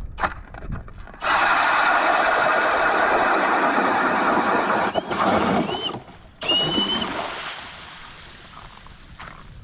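Power drill turning an ice auger through lake ice: a steady grinding of the bit cutting ice, with the drill motor's whine. It stops briefly about six seconds in, runs again, then dies away as the auger is pulled out of the hole.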